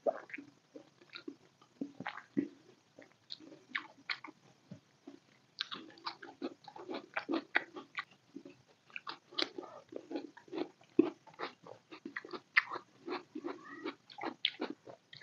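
Close-miked mouth sounds of a person chewing chicken biryani and boiled egg: wet smacking and clicking, coming thicker from about a third of the way in.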